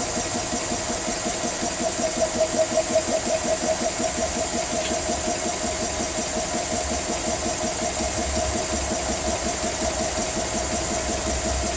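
GX CS3 portable PCP high-pressure air compressor running steadily, with a rapid even pulsing from its pump and a constant high hiss, as it fills an air rifle's reservoir between about 1,000 and 1,500 psi. It is quiet for a PCP compressor and filling slowly as the pressure rises.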